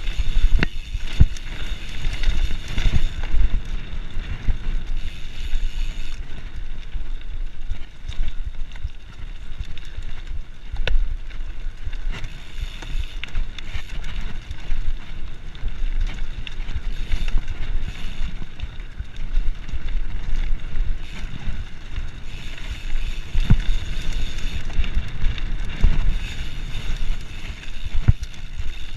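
Mountain bike, a Specialized Stumpjumper FSR Camber, riding fast over dirt singletrack: wind buffets the microphone with a steady rumble over tyre noise on the dirt, and the bike knocks and rattles sharply over bumps now and then.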